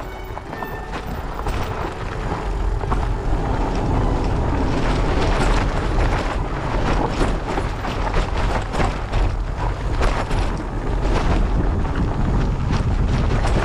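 Wind buffeting the microphone and a steady run of rattles and knocks as a loaded Muru Tanami titanium fat bike rolls fast down rough singletrack.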